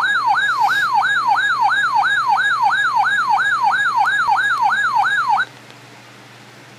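Weather radio's siren-style alert tone going off for a tornado warning: a loud tone falling in pitch over and over, about three sweeps a second. It cuts off suddenly about five seconds in, leaving a steady low hiss and hum from the radio.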